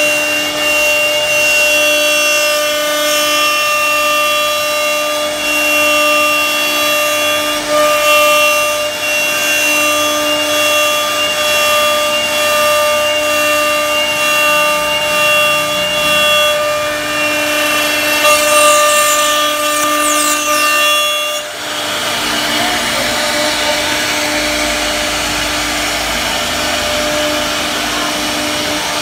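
CNC router spindle whining steadily at a fixed pitch while its carving bit cuts into a wooden door panel, with a rough cutting noise under the tone. About two-thirds of the way through the sound dips briefly, then goes on with less whine and more cutting noise.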